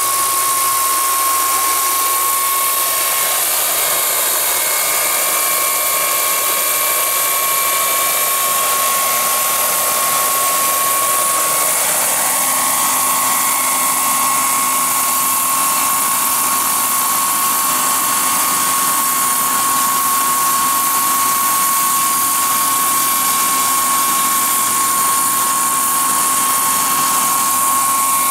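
Turbine engine of a large RC scale Sikorsky S-64F Skycrane model helicopter running steadily as it hovers: a high, steady whine over a loud hiss.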